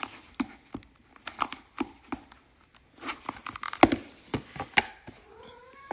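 Packaging of a sealed trading card box being torn open and crinkled by hand: an irregular run of crackling rips and rustles, busiest about three to five seconds in.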